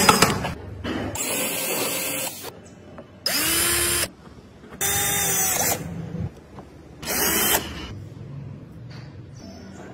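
Cordless drill running in short bursts, about four, each one spinning up quickly, as it drives the fastener at the hub of a wooden model car's wheel.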